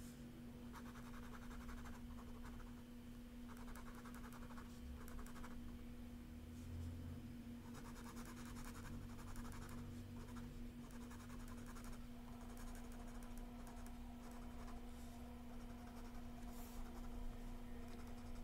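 Faber-Castell sepia ink pen scratching across sketchbook paper in a series of short strokes, drawing and shading lines. A steady low hum runs underneath.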